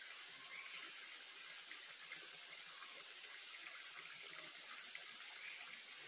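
Steady high-pitched insect chorus over the faint babbling of a mountain stream.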